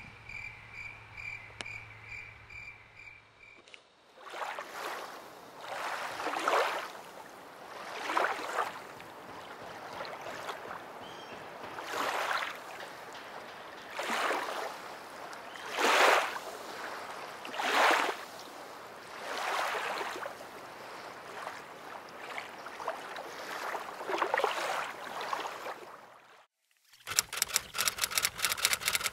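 Wooden paddle strokes through lake water, a swish and splash about every two seconds. A faint pulsing chirp comes before the strokes, and a rapid, even ticking follows them near the end.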